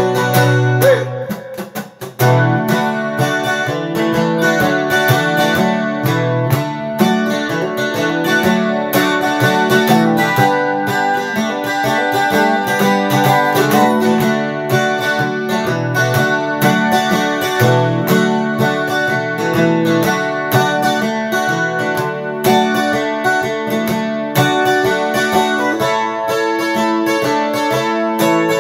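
Acoustic guitar strummed in a steady rhythm, an instrumental break with no singing. A chord rings out and fades about two seconds in, then the strumming picks up again and carries on.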